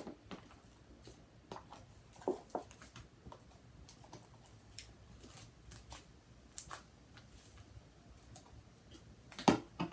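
Hands handling and stretching freshly activated homemade slime, which is still a little sticky: scattered soft sticky clicks and squishes, with a louder cluster of them near the end.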